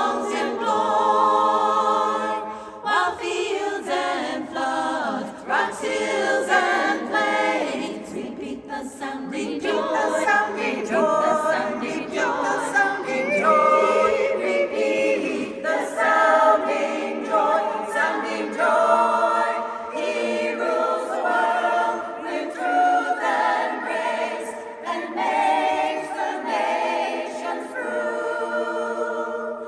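Barbershop chorus singing a cappella, sustained chords in close harmony.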